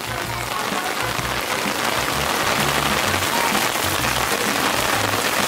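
Heavy tropical downpour: dense, steady rain hissing on the site and the concrete slab, a little louder after the first second. A low bass line of background music sits underneath.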